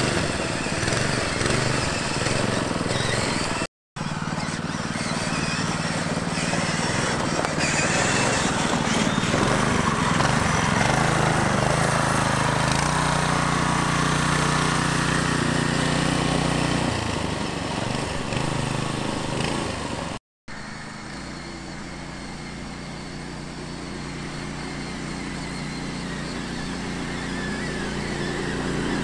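Small gas engine of a kids' go-kart buggy running as it drives around, its note held steady for stretches and shifting with the throttle. It cuts off abruptly twice, then comes back quieter and grows louder near the end.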